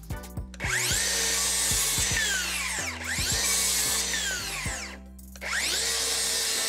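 DeWalt Flexvolt DCS575 cordless circular saw cutting through a timber board twice, with a short break about five seconds in; the motor pitch rises and falls as the blade runs up and winds down. The second cut is into a board held at both ends, where the closing cut pinches the blade.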